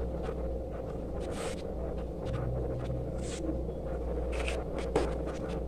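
Table knife spreading chocolate topping over a cake in a plastic tub: soft, scattered scrapes and light taps of the blade, with one sharp click about five seconds in, over a steady low hum.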